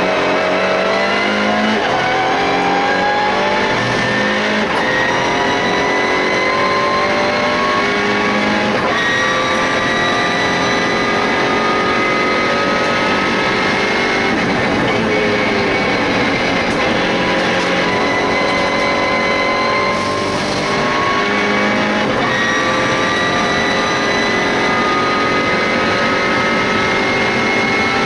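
Onboard sound of a MINI Challenge race car's turbocharged four-cylinder engine pulling hard, heard from inside the stripped cabin. Its pitch climbs steadily in long pulls, broken several times by gear changes.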